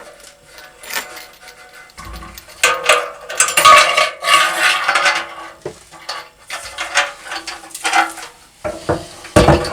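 Metal clinking, scraping and rattling as a float switch and its wires are worked through the opening of a motorcycle petrol tank, loudest a few seconds in, with a sharp knock near the end.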